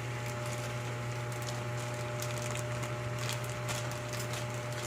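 Chicken adobo simmering in its vinegar in the pan, with scattered faint pops and crackles over a steady low hum.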